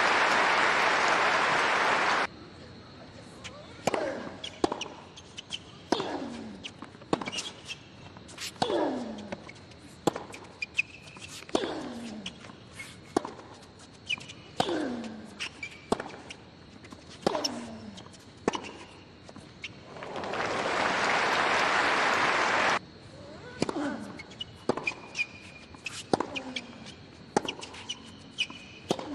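Tennis rally on a hard court: racket strikes on the ball about every second and a half, many followed by a player's short grunt falling in pitch. A stadium crowd applauds at the start and again about two-thirds of the way through. Each round of applause cuts off suddenly at an edit.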